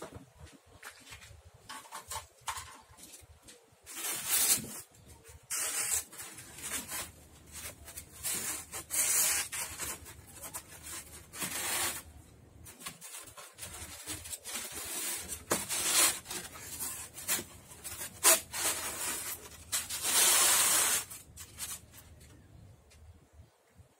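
Styrofoam sheets rubbing and scraping against each other and the tub's wooden sides as they are handled and pressed into place, in irregular strokes with a longer scrape near the end.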